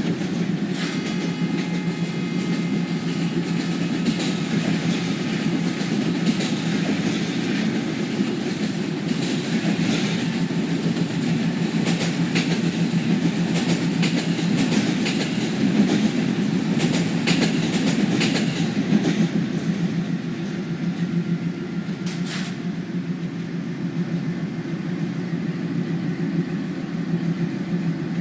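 WDG-3A locomotive's Alco 16-cylinder diesel engine running with a steady, heavy rumble, heard from the cab, with scattered sharp clicks. A faint high tone sounds from about a second in until about eight seconds.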